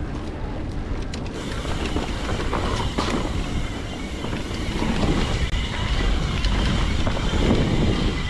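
Wind buffeting an action camera's microphone while a mountain bike rolls down a dirt trail, its tyres running over the ground with scattered ticks and rattles from the bike. It gets louder about five seconds in.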